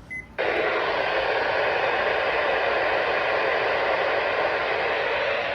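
Radio static: a steady, even hiss that comes up about half a second in after a brief drop-out and holds without any tone in it.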